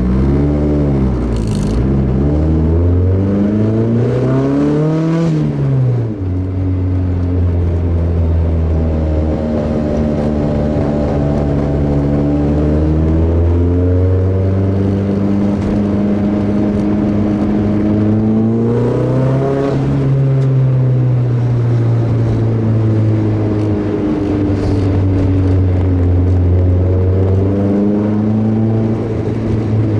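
Nissan 240SX's turbocharged SR20DET four-cylinder with a straight-piped exhaust, driving and pulling through the gears. Engine pitch climbs then drops sharply at each shift, about five seconds in, about twenty seconds in and again near the end, with steady cruising between.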